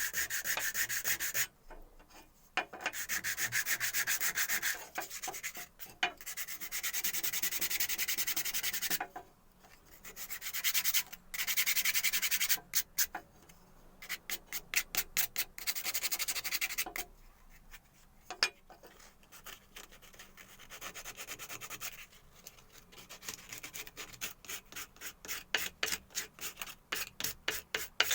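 Hand sanding in runs of quick back-and-forth strokes, with short pauses between runs. Over the last few seconds it turns into separate, slower strokes, about three a second.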